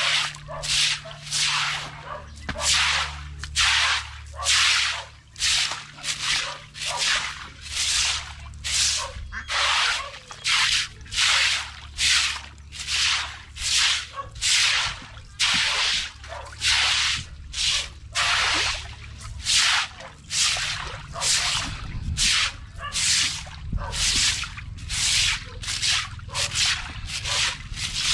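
Rhythmic wet swishing strokes, roughly three every two seconds, from water being worked while a duck pool is cleaned out.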